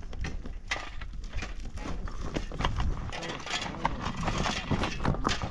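Irregular sharp knocks and clicks of hard objects, several a second, over a steady low background noise.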